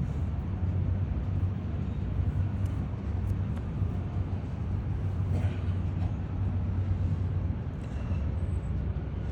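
Steady low rumble of open-air ambience high up on a bell tower, wavering in level with no distinct event.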